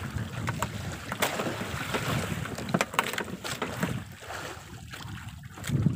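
Wind buffeting the microphone out on open sea, with water washing against a small outrigger boat and a few sharp clicks. The wind eases off for the last couple of seconds.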